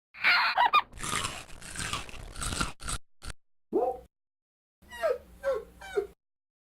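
A dog making short whining yelps: one falling call, then three quick ones close together near the end, after a few seconds of crunching, rustling noise.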